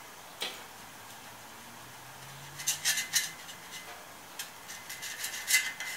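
Small metal tool scraping and tapping against a metal workpiece while spreading epoxy adhesive into its surface: scattered light clicks, a quick cluster about halfway through, and the sharpest tick near the end.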